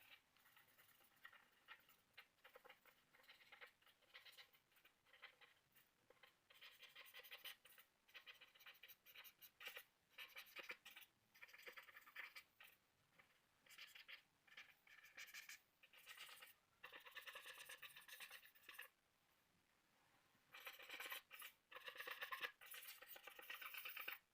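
Faint scratching of a pencil on paper in runs of quick shading strokes, stopping for about a second and a half about three-quarters of the way through, then starting again.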